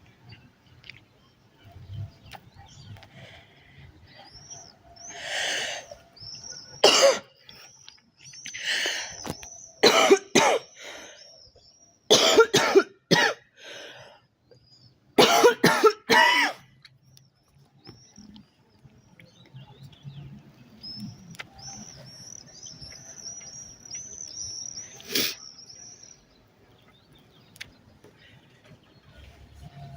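A girl coughing in bouts: single coughs and quick runs of two or three, bunched in the first half, then a lone cough near the end.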